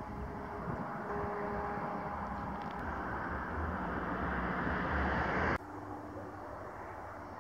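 Road traffic noise: a steady hiss of passing cars that grows louder, then cuts off suddenly about five and a half seconds in, leaving a quieter background hum.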